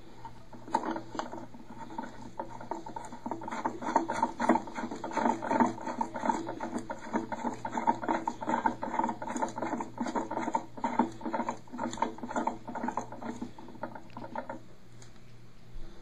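A Sloan FlushMate plastic cartridge being turned by hand into a pressure-assist toilet tank, giving a rapid run of clicks and scrapes from the plastic threads. The clicking stops about a second before the end.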